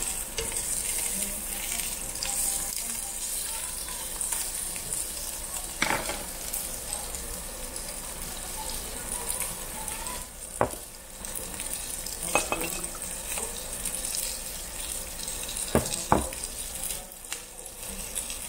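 Thick slab of pork belly sizzling on a charcoal-heated cast-iron grill plate, a steady frying hiss with a few sharp clicks scattered through it.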